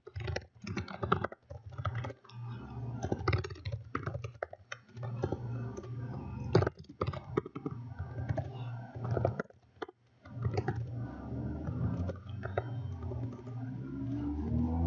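Computer keyboard typing: quick irregular runs of keystrokes with short pauses between them, over a steady low hum.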